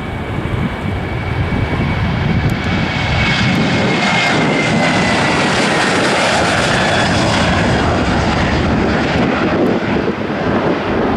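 Boeing 737-800's CFM56-7B turbofan engines at takeoff thrust as the airliner rolls past and climbs away: a loud, steady rushing rumble with a high whine that slides down in pitch as the aircraft goes by.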